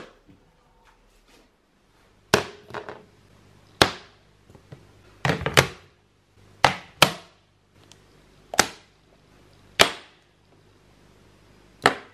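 Makeup products (bottles, palettes and concealer sticks) set down one at a time on a mirrored glass vanity top: about nine sharp clacks, one every second or so.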